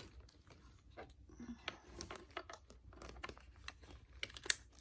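Small plastic doll-house table legs being handled and fitted into the tabletop: scattered light clicks and taps, with one louder sharp click near the end.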